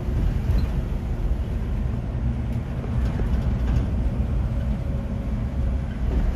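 Engine and road noise of an open-sided passenger truck driving along, heard from the passenger bench: a steady low rumble with a faint even engine hum.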